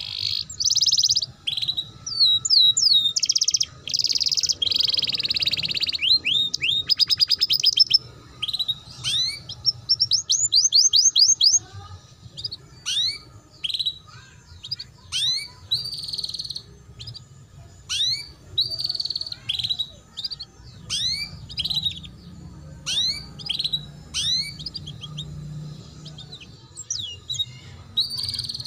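Domestic canary singing a chattering 'ngeriwik' song of quick upward-sweeping chirps and rapid trills, dense and loud for the first twelve seconds, then thinning to sparser, quieter chirps.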